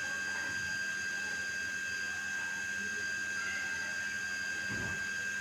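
A steady high-pitched electrical whine with a low hum underneath, and a soft low thump near the end.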